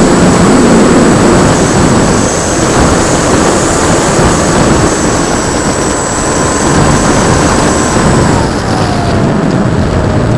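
Rushing air and motor noise picked up by the camera aboard a radio-controlled P-51D Mustang model in flight, with a steady high whine. A fainter whine drops in pitch about eight seconds in.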